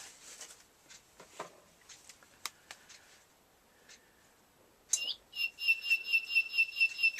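A bird clock striking the hour with recorded birdsong: a loud, fast warbling trill of whistled notes that starts about five seconds in, after a few faint clicks.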